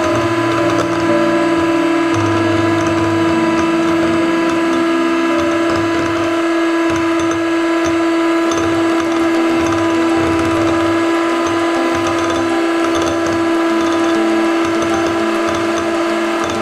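Handheld electric mixer running at a steady whine, its beaters whipping instant coffee, sugar and water into dalgona froth in a small bowl, with an uneven low rumble underneath.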